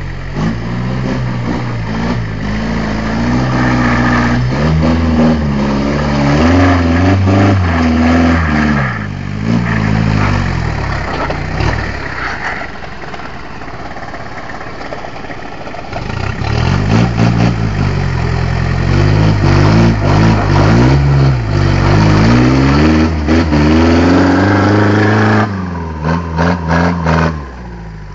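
Lifted off-road pickup truck's engine revving up and down again and again as it crawls over a rock, easing to a lower, quieter note for a few seconds about halfway through before revving again. Near the end come a few sharp knocks.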